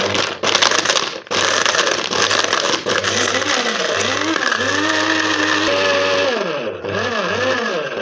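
Cheap electric blade coffee grinder grinding soft pastel sticks into weathering powder. It makes a lot of noise: a few quick on-off pulses in the first second or so, then it runs continuously, its pitch rising and falling over and over in the second half.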